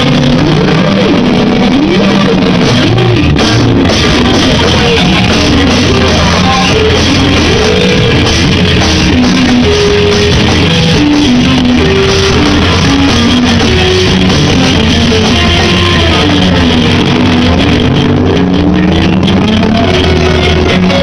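Loud live noise-rock band playing: electric guitar, drum kit and a woman shouting vocals into a microphone, heard close to the stage.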